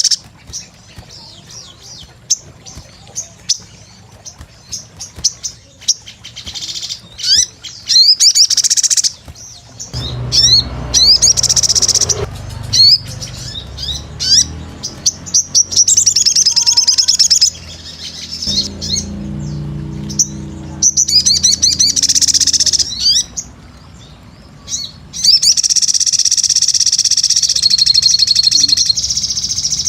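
A sogon, a small sunbird, singing rapid, high-pitched twittering song in repeated bursts, some of them long and dense. There is a low hum underneath in the middle stretch.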